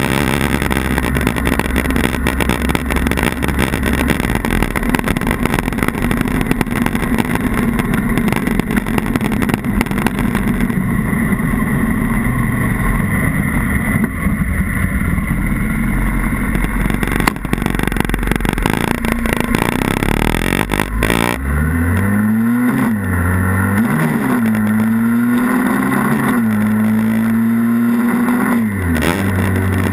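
Honda Rebel 250's parallel-twin engine running under way, with heavy wind rush on the handlebar-mounted microphone. In the second half the wind eases and the engine note comes through clearly, rising and dropping several times as the bike accelerates and changes gear.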